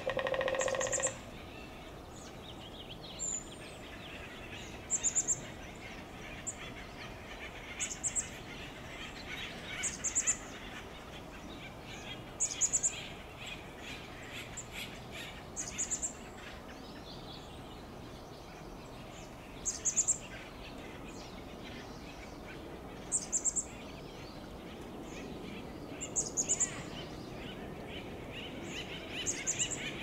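Acorn woodpecker call, one short harsh note right at the start, then short, very high bird notes repeating every two to three seconds over a steady background of bird chatter.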